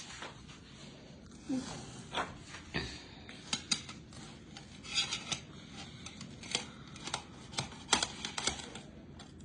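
A spatula scraping and clinking against the toaster-oven pan while a pizza is lifted out: irregular light clicks and knocks with brief scrapes.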